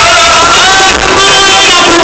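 Live Punjabi stage music played loud through PA loudspeakers, a wavering melody line over the band.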